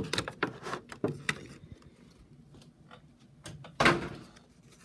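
Clear plastic card packaging crinkling and clicking as it is handled, with a single louder plastic clack about four seconds in.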